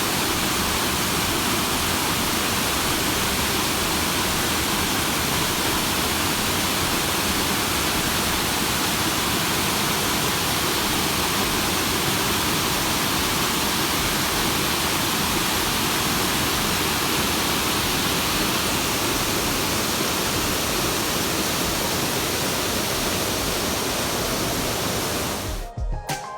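Waterfall: a steady, loud rush of falling water, breaking off near the end as music comes in.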